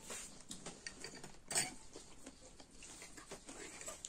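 Metal spoon and fork clinking and scraping against a glass bowl as food is stirred. The clinks are quiet and scattered, the loudest about a second and a half in.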